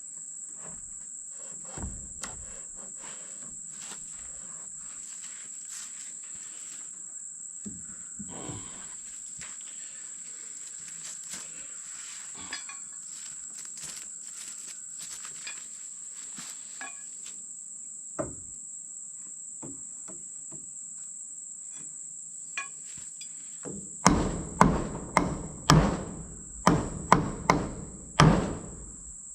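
A run of about seven heavy hammer blows on wood near the end, knocking a porch board loose from under a supported post, after scattered light knocks and handling. A steady high-pitched insect drone, crickets or similar, runs throughout.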